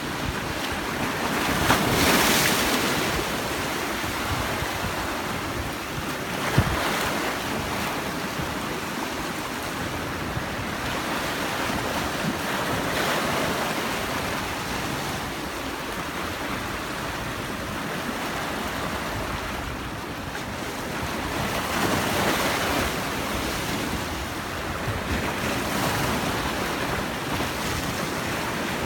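Black Sea surf washing onto the shore, a steady rush of water that swells as a wave breaks every several seconds, with wind buffeting the microphone. Two short sharp knocks stand out, about two seconds and about six and a half seconds in.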